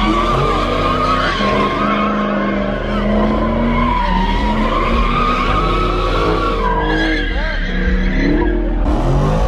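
Car tires squealing steadily as a car spins donuts, with the engine held at high revs under the squeal. About seven seconds in the squeal breaks off and the engine note rises and falls.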